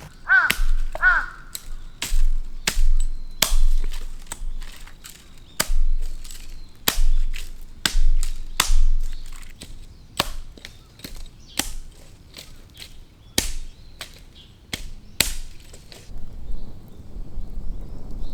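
Firewood being cracked and broken: a run of sharp, irregular snaps and knocks, about one every half second to a second, that stops about three seconds before the end. A crow caws twice about half a second in.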